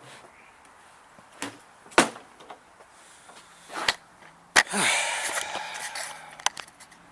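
Sharp clicks and knocks, four of them over about five seconds, then a scraping rattle lasting about two seconds: hand-handling of the backpack blower's plastic parts and tools.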